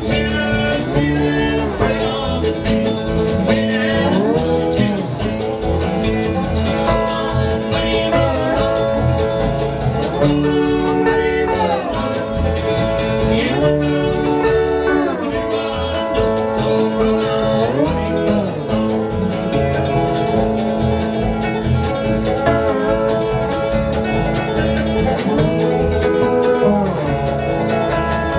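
Homemade electric lap steel guitar built from laminated skateboards, played with a slide bar in a country style: sustained notes with smooth glides up and down between them every couple of seconds.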